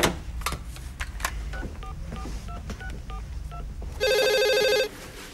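Knocks and clatter of scuba gear being handled and packed, then a corded desk telephone rings once about four seconds in: a loud electronic ring lasting just under a second.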